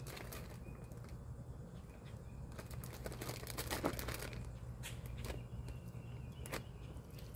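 Plastic zip-top freezer bag crinkling and rustling in short, scattered handling sounds as raw chicken pieces are pushed into it, over a steady low hum.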